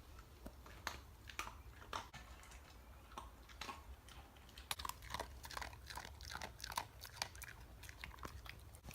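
A dog eating its food, with irregular crunching and chewing sounds that come thicker from about halfway through.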